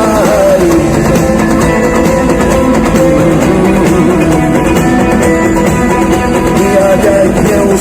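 Rock band playing an instrumental passage, a lead guitar line with bending, sliding notes over guitar, bass and drums.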